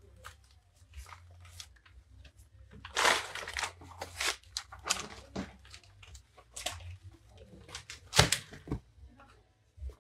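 Plastic packaging and paper crinkling and rustling in short irregular bursts as goods are handled, the loudest crackle about eight seconds in.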